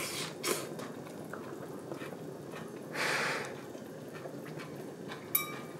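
A person eating steaming-hot food: a slurp as the bite is taken, then a sharp breathy exhale through the mouth about three seconds in while chewing it to cool it, and a short click near the end.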